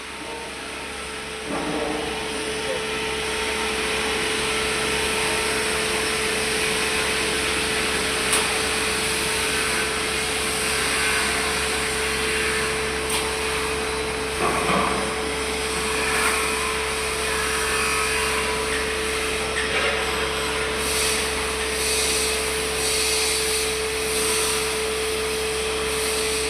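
A machine, likely a welding machine, runs steadily with a constant hum and hiss through this metal-fitting work. It comes up about a second and a half in, with a few short clicks along the way.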